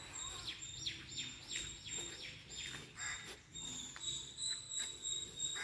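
Birds chirping: a quick run of falling chirps, several a second, in the first three seconds, then scattered calls. Behind them runs a steady high-pitched buzz of insects.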